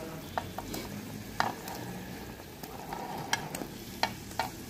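A steel spoon clicking sharply against a plate several times as pieces of boiled gram-flour dough are pushed off it into a kadai of gravy, which simmers underneath with a soft bubbling.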